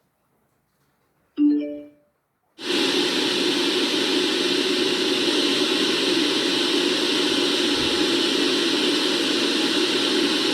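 A portable CD player's speaker gives a short electronic tone, then in FM radio mode plays steady loud static hiss: no station is tuned in.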